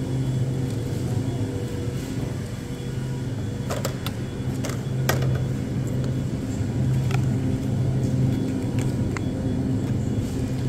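Steady low machinery hum of supermarket refrigeration and ventilation, swelling and easing slightly, with a few light clicks around the middle.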